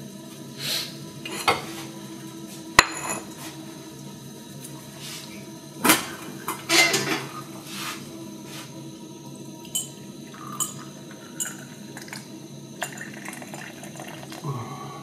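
Scattered clinks and knocks of dishes and cutlery being handled, the sharpest about three seconds in. For the last couple of seconds, tea pours from a teapot into a small glass tea glass.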